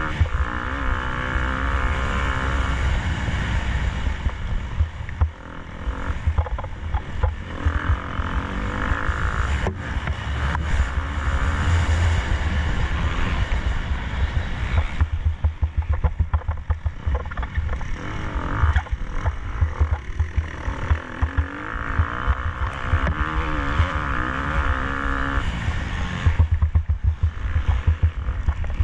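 KTM 250 SX-F motocross bike's four-stroke single-cylinder engine being ridden hard, its revs rising and falling again and again as the rider accelerates, shifts and backs off.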